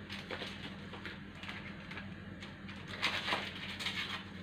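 Rustling and crinkling of a paper baking-powder sachet being emptied into a mixing bowl, loudest about three seconds in, over a steady low hum.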